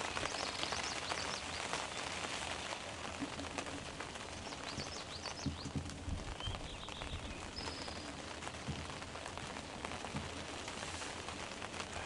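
Steady rain pattering, with many small raindrop ticks. A few faint, short chirps of small birds come through above it.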